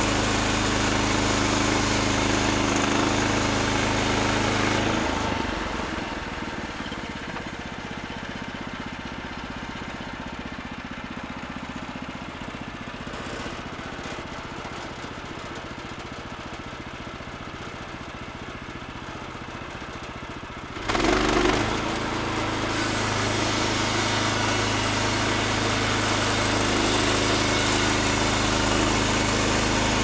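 Small gas engine of a Woodland Mills portable band sawmill running at full throttle while the head is pushed through a cut. About five seconds in it drops to a rough idle. About two-thirds of the way through it surges back up to speed and runs steadily again.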